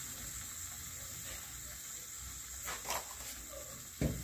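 Thick spinach and soya-chunk gravy simmering on low heat in a steel kadai, a faint steady sizzle. A couple of faint clicks come about three seconds in, and a short, louder knock near the end.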